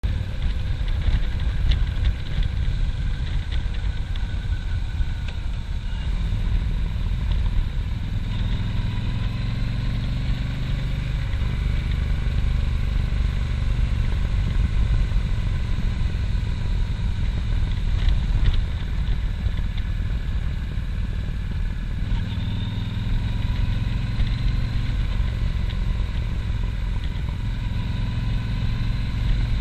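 Cruiser motorcycle engine running under way with wind noise, steady and loud, its pitch rising and easing a couple of times.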